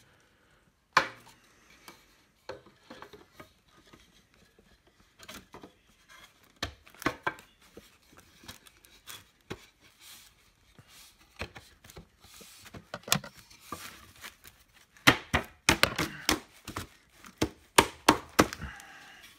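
Irregular wooden knocks and clicks as the parts of a small wooden rocking chair are handled and fitted together. The knocks come thicker and louder in the last few seconds.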